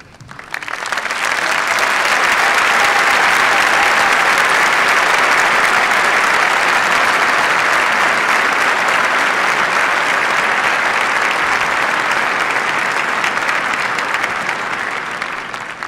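Large crowd applauding, swelling up over the first second or two, holding steady, then starting to fade near the end.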